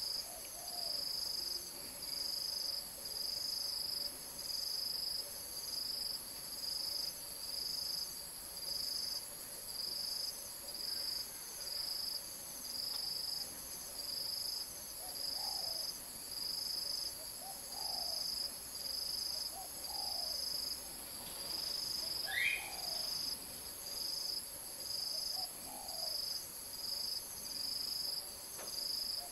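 Insect chorus: a high buzzing that pulses about once a second over a steady, even higher whine. A few short low calls sound in the second half, and a single quick rising chirp comes about two-thirds of the way in.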